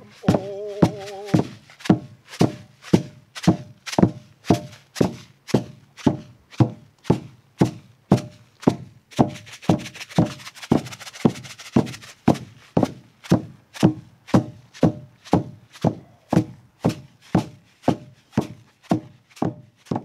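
Painted hide hand drums beaten together in a steady beat of about two strokes a second. A voice finishes a sung phrase about a second and a half in, and a quick rattling flurry fills a few seconds around the middle.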